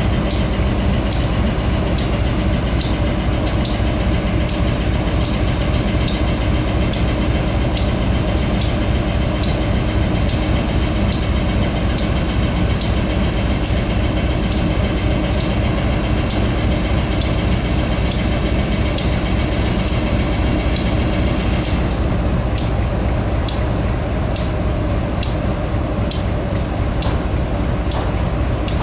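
GE B23-7 diesel locomotive's 12-cylinder engine running with a steady low rumble as the locomotive moves slowly with its train. A sharp click repeats about twice a second, and a faint high whine drops out about three-quarters of the way through.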